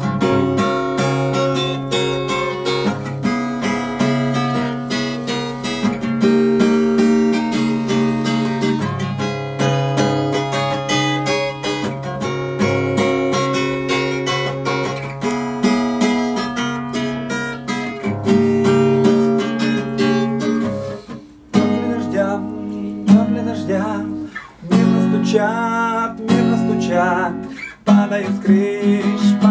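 Acoustic guitar strummed in a steady chord rhythm, the instrumental intro to a chanson song. About two-thirds of the way through, the playing breaks into shorter phrases with brief pauses between them.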